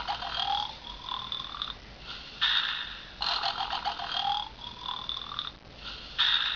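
Recorded snoring sound effect from a Moai-head novelty tissue case, set off by pulling out a tissue: a rattling snore followed by a whistling out-breath, repeated about every three seconds.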